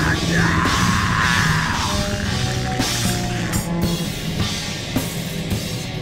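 Goregrind metal music: distorted guitars with pounding drums, the riff changing about two seconds in.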